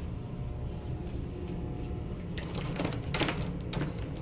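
A short run of clicks and knocks about two and a half to three and a half seconds in, as a panelled door's handle and latch are worked and the door is pushed open. A steady low hum sits underneath.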